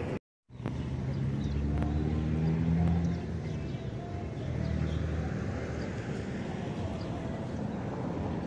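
Outdoor road traffic: a motor vehicle's engine hum swelling and fading over steady background noise, loudest two to three seconds in, with a brief cut to silence just after the start.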